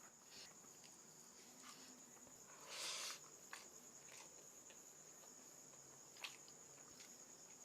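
A cricket's steady high-pitched chirring in the background, with a few faint clicks of eating and one brief louder smacking or slurping sound about three seconds in.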